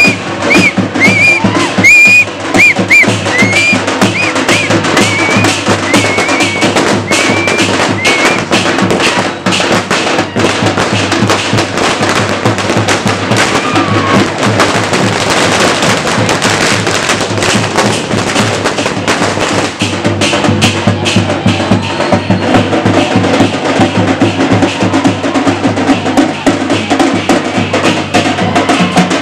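Loud, fast rhythmic drumming runs throughout, with a run of short, shrill whistles over it for roughly the first eight seconds.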